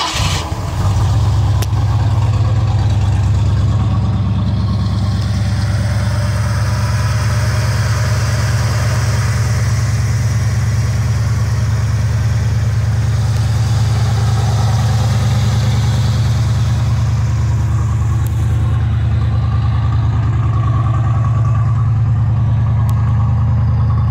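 1978 Ford F100's 302 V8 engine idling steadily.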